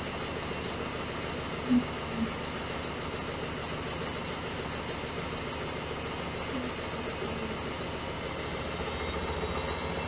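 Hoover Dynamic 1400 front-loading washing machine running a wash, with a steady hum from the motor and turning drum. Two short thumps sound about two seconds in.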